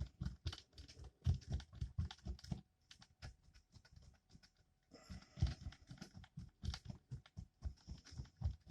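Spatula stirring denture-repair acrylic (powder mixed with liquid) in a small mixing cup: a quick run of light taps and scrapes, about three or four a second, which thins out in the middle and then picks up again.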